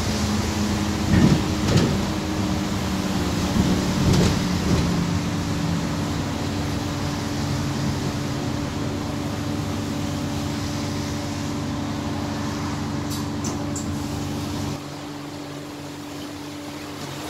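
Interior of an Alexander Dennis Enviro400 hybrid double-decker bus on the move: the drivetrain runs with a steady whine over a low rumble, with a few rattles and knocks in the first few seconds. About fifteen seconds in, the low rumble drops away sharply while the whine carries on.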